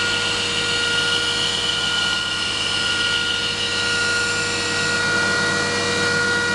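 Belt grinder running with a steady motor whine, a knife blade held against the abrasive belt to grind its secondary bevel, giving a continuous grinding hiss.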